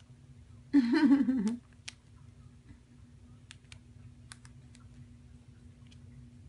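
A short voiced sound about a second in, pitched like a woman's voice but not recognised as words. It is followed by a handful of faint, scattered clicks over a low steady hum.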